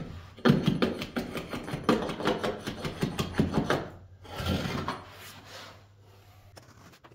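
Carpet stair tool (tucker) scraping in rapid rasping strokes along the carpet edge at the wall, tucking it down behind the tack strip; the strokes stop about four seconds in, with one shorter scrape after and fainter handling near the end.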